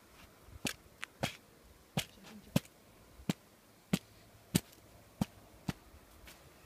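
Mountaineering boots stepping and stamping on firm snow: a run of sharp crunches, about one every two-thirds of a second.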